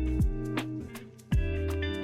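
Background music: plucked, guitar-like notes and chords over a deep bass and a steady clicking beat, with a new chord struck about a second and a half in.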